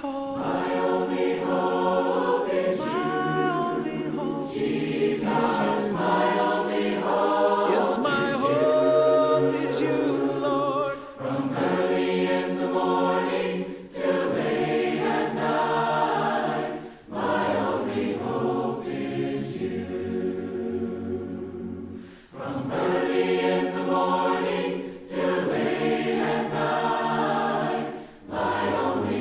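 Unaccompanied hymn singing by a group of voices in harmony, in the a cappella style of the Churches of Christ. The hymn moves in long held phrases with short breaths between them.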